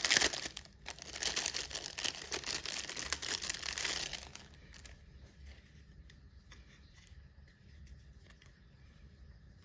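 Packaging crinkling and tearing as a small cross-stitch needle case is handled and unwrapped, a dense rustle that dies away after about four seconds into faint handling ticks.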